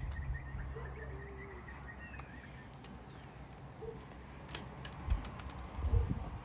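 Scattered calls of wild birds: a quick run of short high chirps at first, then a few brief gliding squeaks and whistles. A handful of sharp clicks and low thumps come near the end.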